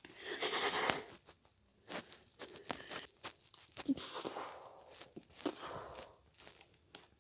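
Homemade sound effects: a run of irregular crinkling, crackling and rustling noises with sharp clicks, starting with a longer rustle and then coming in short, scattered bursts.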